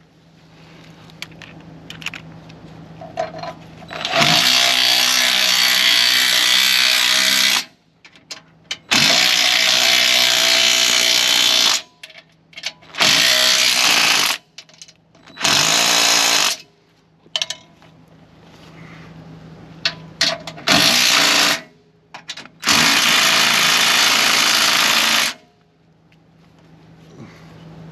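Cordless impact driver running bolts into a camper's steel frame to fasten a stabilizer jack, in six bursts of one to three and a half seconds with pauses between.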